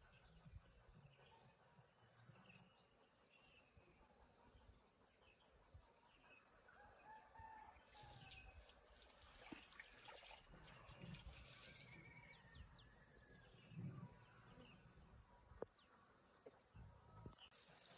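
Faint outdoor ambience of insects with a steady high-pitched trill. Rustling comes in about halfway through and again near the end.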